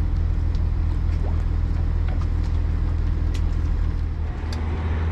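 An engine running steadily with a low drone, with a few faint clicks over it.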